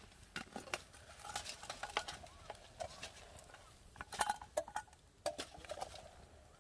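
Utensils clinking and scraping against a metal cooking pot, a run of light irregular knocks with a short metallic ring to some of them. The busiest cluster comes about four seconds in.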